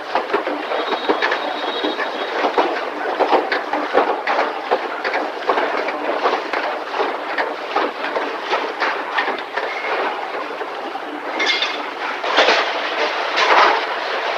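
Continuous clattering of car-factory machinery, with dense irregular metallic knocks and rattles and a brief high whine about a second in and again near the end. The film is played back at 1.5 times speed.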